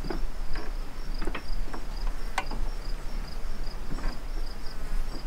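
An insect chirping steadily in a high, even rhythm, a little over two short chirps a second, with a few short sharp clicks over it.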